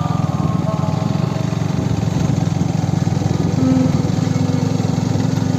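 A small engine running steadily with fast, even firing pulses, as from a vehicle on the move.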